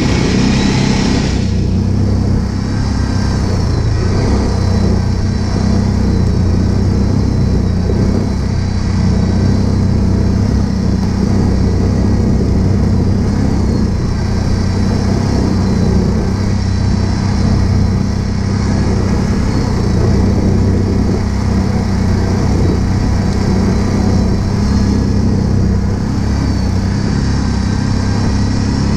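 ATV engine running steadily at low, even revs while riding a rough dirt track.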